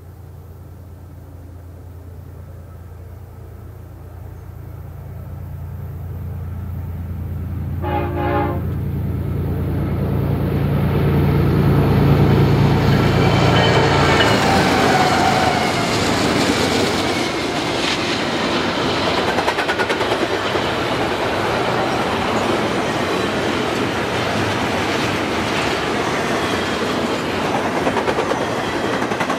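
Freight train of BNSF diesel locomotives and double-stack container cars passing. The low engine sound grows steadily louder as the locomotives approach, with one short horn blast about 8 seconds in. The locomotives go by at their loudest around 12 seconds, followed by the steady rumble and clatter of the wheels on the rails, with faint wheel squeal.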